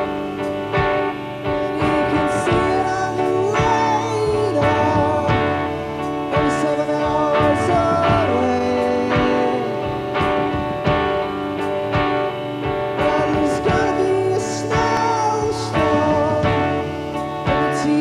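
Live indie rock band: a man singing over electric guitar and drums, with regular drum and cymbal hits under the vocal line.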